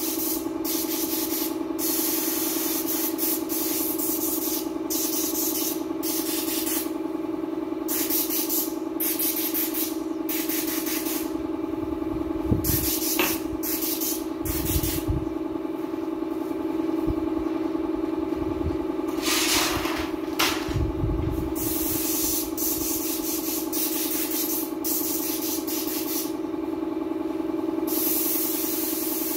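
Compressed-air paint spray gun hissing in repeated bursts of a second or two as it is triggered on and off, over a steady hum. A few low thumps come in the middle.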